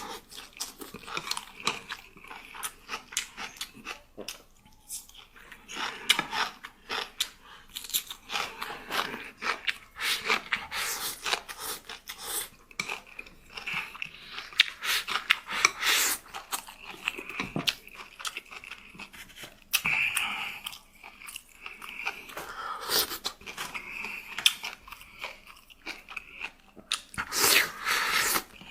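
A person chewing and biting crunchy food close to the microphone: an irregular run of crunches and wet mouth clicks with short pauses.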